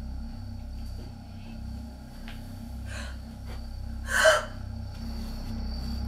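A sharp, short gasp about four seconds in, with a fainter breath a second before it, over a low steady drone.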